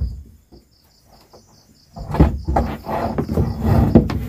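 Wooden bar being scraped and knocked into place across a plank door to bar it shut, a rough wood-on-wood rubbing with sharp knocks starting about two seconds in. Insects chirp faintly in a steady pulsing rhythm.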